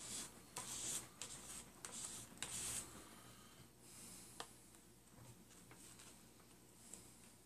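Faint handling noises from opening small epoxy tubes with a knife over a foam plate: several short scratchy rustles in the first three seconds, then a single light click about four and a half seconds in.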